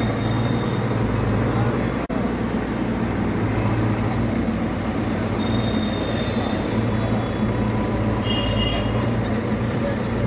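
An engine running steadily with a low hum, broken briefly about two seconds in.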